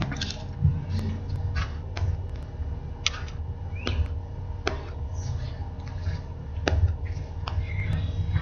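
Handling noise on the model plane's onboard camera microphone as the plane is carried: a low rumble with scattered clicks and knocks. A few short chirps come through, about 4 s in and near the end.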